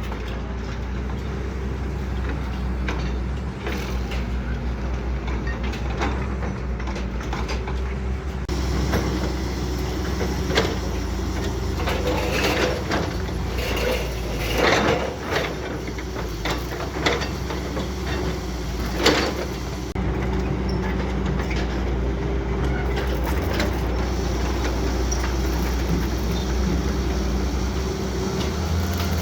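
Heavy earthmoving machine engine running steadily, with several metallic clanks and knocks in the middle, the loudest about two-thirds of the way through.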